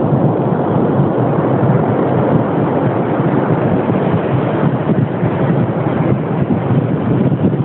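Steady, loud wind noise buffeting the microphone, an even rush with no distinct events.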